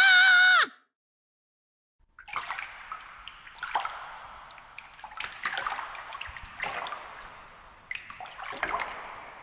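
A steady pitched tone that stops abruptly, then a short silence, then water splashing and pouring in a run of about six surges, roughly every second and a half, which cuts off suddenly.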